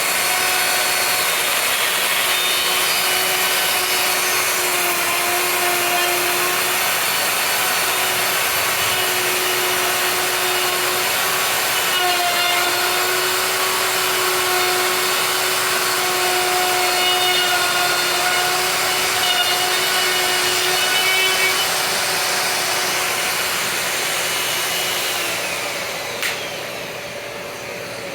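Festool OF 1400 EQ router running and cutting wood, a steady loud motor whine over cutting noise; over the last few seconds the sound eases off.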